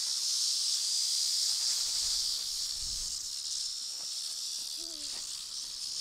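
A pan full of live cicadas buzzing, a steady high-pitched hiss that slowly fades as the insects die in hot water.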